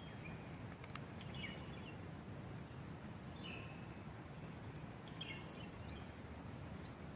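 Faint outdoor ambience: a steady low hiss with a handful of short, scattered bird chirps.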